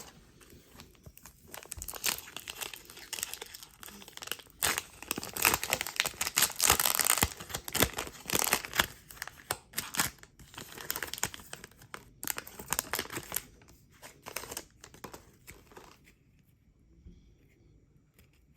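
A foil trading-card pack wrapper being torn open and crinkled by hand, a dense crackling that is loudest in the middle and fades away near the end.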